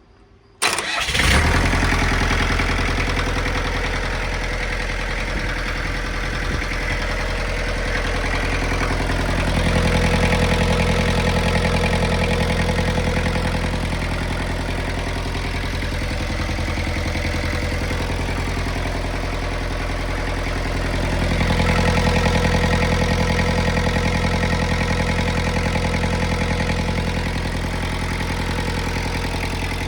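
Bobcat 7753 skid steer's diesel engine starting about a second in, then running steadily, twice growing louder for a few seconds, on a test run after a new radiator was fitted.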